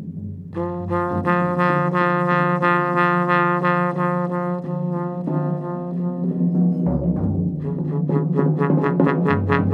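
Trombone in free improvisation, holding one long note from about half a second in until about five seconds, over a low sustained drone. Near the end a rapidly pulsing, fluttering tone sets in over deep low notes.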